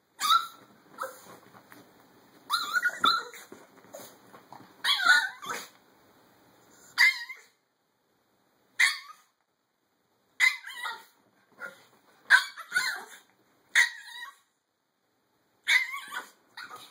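Chihuahua barking at a larger dog: high-pitched yappy barks in about ten short bouts, some single and some in quick runs, with brief pauses between.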